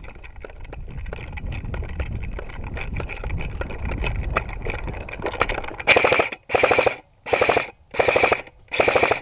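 Airsoft gun firing full-auto suppressing fire: a long stream of fast clicking shots, then five short loud bursts in quick succession over the last three seconds.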